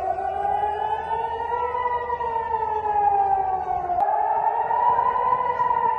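Air raid siren wailing, its pitch slowly rising and falling in sweeps of about two seconds each, warning of incoming missiles. The sound breaks off and restarts abruptly about four seconds in.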